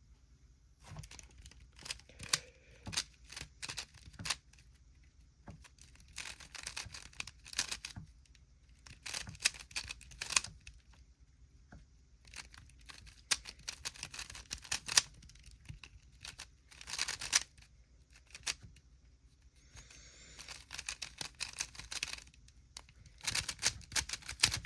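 Rubik's cube being turned fast in a speedsolve: bursts of rapid plastic clicking and clacking turns, separated by short pauses.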